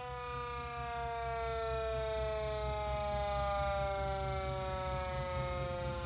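Car-mounted siren sounding one long pitched tone whose pitch slides slowly and steadily downward as it winds down, over a low steady rumble.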